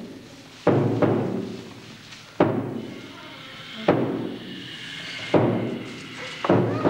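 Slow, heavy booming thuds, five of them about one and a half seconds apart, each ringing out for about a second in the hall.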